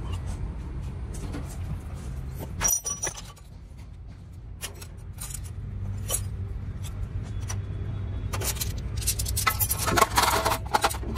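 Metal parts of a hydraulic excavator swing motor clinking as they are handled and set down, with a busier run of clinks near the end as the loose pistons are picked out of a steel basin. A steady low hum runs underneath.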